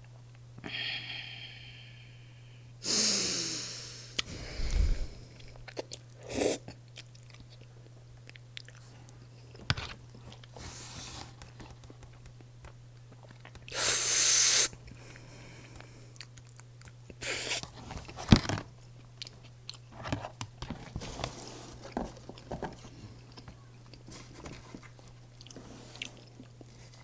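Close-miked eating of cheese pork cutlet and rosé spaghetti: wet chewing and small clicks, broken by two louder noisy bursts of about a second each, a few seconds in and again about halfway through.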